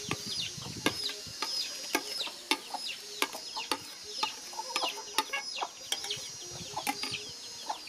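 Birds chirping in many short, high, falling chirps that repeat throughout. Sharp clinks of a knife stirring in a metal cooking pot are heard now and then.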